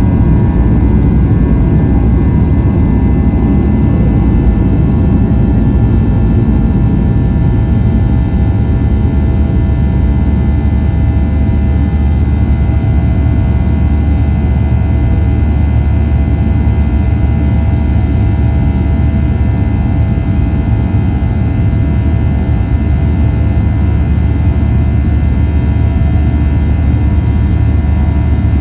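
Jet airliner's turbofan engines at climb power during takeoff, heard inside the cabin: a loud, steady rumble with a steady whine of several tones over it.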